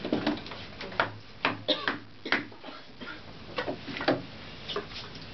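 Hand axe chopping a wooden clog blank on a log chopping block: a series of irregular sharp wooden knocks, about seven or eight over five seconds.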